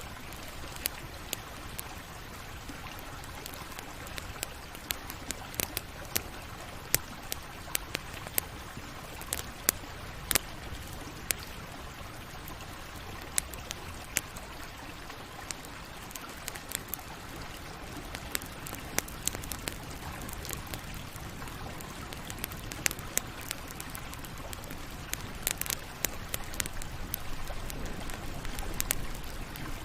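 Campfire burning: irregular sharp crackles and pops of wood over a steady low hiss, the pops coming thicker near the end.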